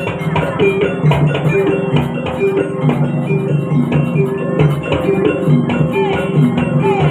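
Jaranan dance accompaniment: gamelan metallophones playing a repeating melody over hand drums, with a few sliding notes near the end.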